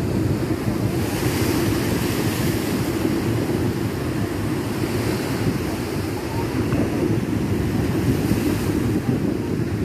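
Rough storm surf breaking and washing over a rock seawall, a continuous loud churning of water, with strong wind rumbling on the microphone.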